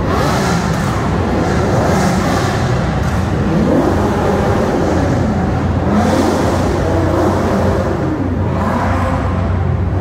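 Several supercar engines running at once and being revved, their pitch rising and falling again and again over one another, inside a large hall.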